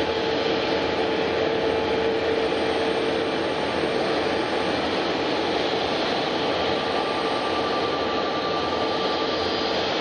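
Jet airliner engines running: a steady rushing noise with a faint steady whine that fades a few seconds in, and a higher one that comes in past the middle.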